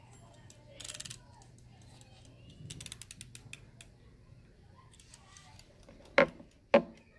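Desk items being handled on a tabletop close to the microphone. There is a brief rustle, then a run of light clicks and rattles, then two loud knocks about half a second apart near the end.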